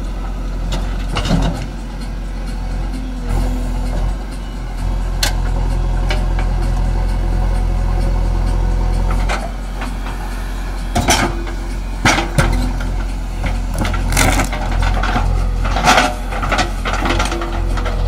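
JCB 3DX backhoe loader's diesel engine running steadily under load while the backhoe works. From about halfway on, a run of sharp knocks and thuds comes as the bucket dumps soil and stones into the truck's steel tipper body.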